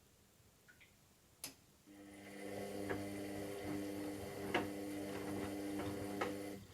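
Washing machine early in a synthetics warm-wash cycle: a click, then its motor runs with a steady hum and a few sharp knocks for about five seconds before stopping suddenly.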